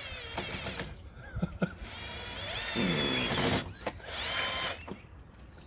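Cordless drill run in several short bursts into a wooden beam, its motor whining steadily during each burst.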